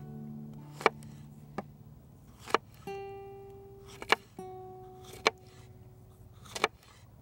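Bark River JX4 Bushbat knife slicing through a jalapeño pepper and striking a wooden cutting board: about six sharp chops at uneven intervals, over guitar music.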